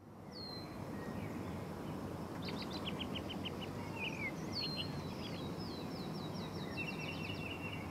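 Several birds singing and calling over a steady hush of outdoor background noise: whistles that sweep down in pitch, quick runs of repeated notes, and chirping near the end.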